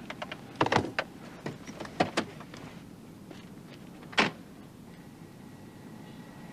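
Car doors being handled: a run of short latch clicks and clunks in the first couple of seconds, then a single sharper clunk about four seconds in.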